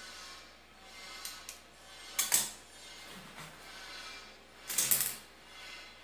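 Metal kitchen tongs clinking against a frying pan and plate in a few short clatters, the loudest about two seconds in and again about five seconds in.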